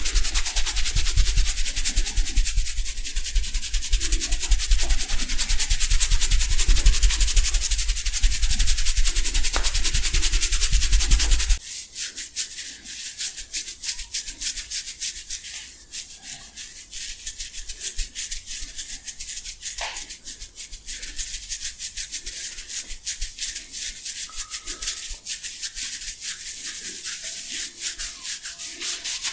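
Hands massaging an oiled scalp: for about the first twelve seconds a fast, loud, continuous rubbing of a palm back and forth over the hair, then it changes abruptly to quieter scratchy rubbing as the fingertips knead through the oily hair.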